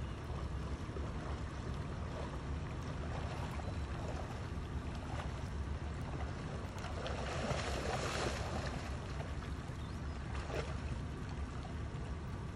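Shallow stream water running, with wind buffeting the microphone; about seven seconds in, a louder splashing lasting a second or so as a Kodiak brown bear wades through the water, and a shorter splash a few seconds later.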